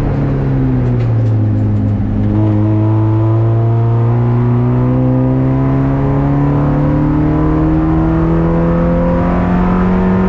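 Race car engine heard from inside its stripped, roll-caged cabin. The revs drop for about two seconds as the car slows, then climb steadily in one long pull under acceleration.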